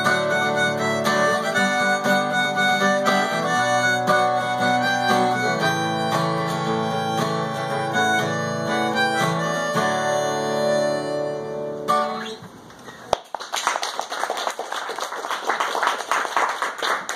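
Acoustic guitar strummed while a harmonica in a neck holder plays a melody over it. Near the end the playing stops and the last chord dies away, then a few people clap.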